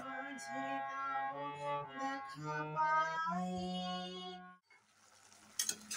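A woman singing while playing a harmonium, the reeds holding sustained notes beneath her voice; the music stops about four and a half seconds in. A faint hiss and a few sharp clicks follow near the end.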